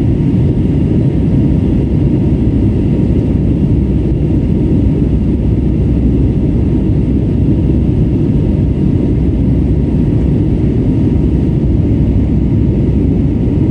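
Steady low rumble of cabin noise inside an airborne Airbus A320neo, its Pratt & Whitney PW1100G geared turbofan engines and the airflow over the fuselage heard from a window seat.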